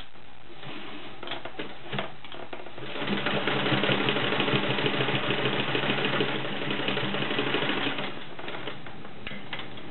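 An all-metal Kenmore model 1422 electric sewing machine stitching through layers of folded denim. It runs in a fast, even rattle for about five seconds in the middle, with a few separate clicks before and after. The hook and race mechanism is a little loud, as the owner notes.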